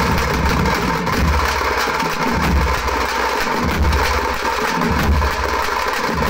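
Drum band playing: large bass drums on wheeled stands and shoulder-slung drums beaten with sticks in a fast, dense, unbroken rhythm, with heavy low thuds pulsing through it.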